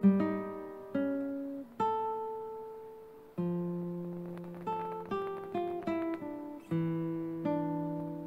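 Background music: a solo plucked guitar playing single notes and small chords, each note struck and left to ring and fade.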